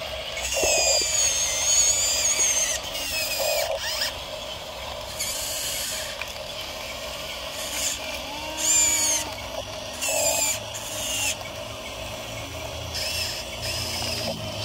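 Small electric motors and gearbox of a toy RC bulldozer whining in repeated bursts as it pushes gravel, the pitch wavering as the motor speed changes.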